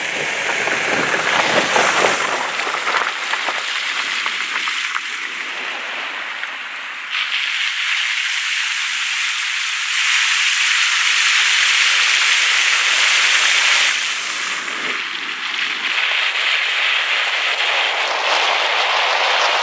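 Heavy rain pattering densely on a car's roof and windshield, with tyres hissing through water on the flooded road. The hiss changes abruptly in level a few times.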